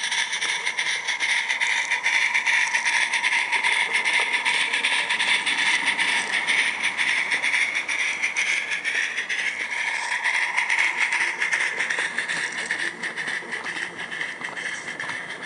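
Live steam 16mm-scale garden-railway locomotive, fitted with a Summerlands Chuffer, chuffing rapidly as it hauls a train of wagons, with the wagons rattling along the track. The sound grows a little quieter near the end.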